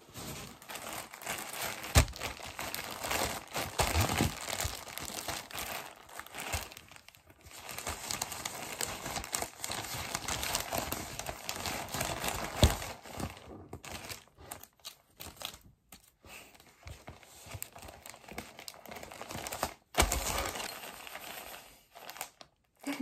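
Plastic poly mailer crinkling and rustling as it is handled and packed, with a few sharper crackles, the loudest about two seconds in.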